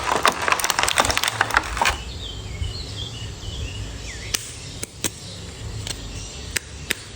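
Toy packaging and plastic figures being handled: a dense run of crackles and clicks for about two seconds, then a few separate sharp clicks.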